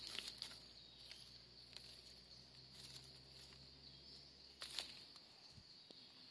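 Faint small scrapes and leaf-litter rustles as a knife digs a mushroom out of dry fallen leaves and soil, with a louder crackle of leaves about four and a half seconds in. A steady high insect drone sits underneath.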